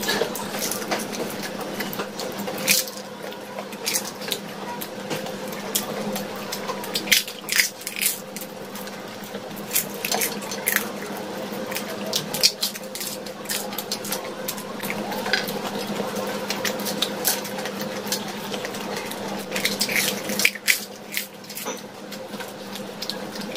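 Close-miked eating of doi fuchka (dahi puri): the hollow puri shells crunch and the yogurt-soaked filling is chewed wetly, in bursts of sharp crunches and mouth noises. A steady low hum runs underneath.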